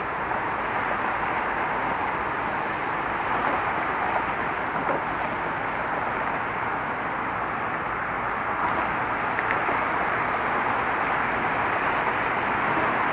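Steady traffic noise from cars driving on a roadway, an even hiss with no single vehicle standing out.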